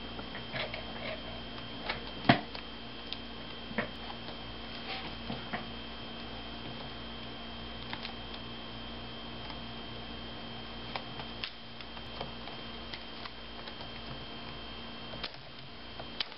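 Scattered small clicks and taps of hands handling a laptop LCD panel and plugging its video ribbon cable back in, with the sharpest click about two seconds in, over a steady high-pitched whine and low hum.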